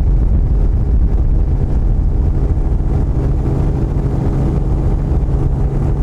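Steady, loud engine drone with a constant low hum.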